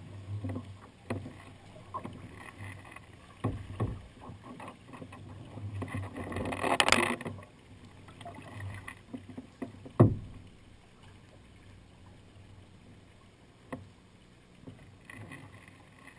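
Sea kayak paddling: paddle strokes dipping and water lapping and dripping against the hull, with small scattered clicks. A louder splash swells and fades about seven seconds in, and a single sharp knock comes about ten seconds in.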